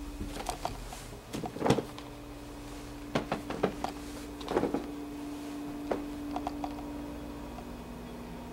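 Scattered knocks and bumps over a steady low hum, the loudest a cluster a little under two seconds in, with smaller groups of knocks around three to five seconds and again near six to seven seconds.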